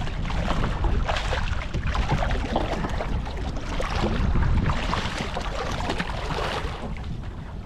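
Hooked striped bass thrashing and splashing at the water's surface alongside the boat as it is landed by hand, in uneven surges, over a steady wind rumble on the microphone.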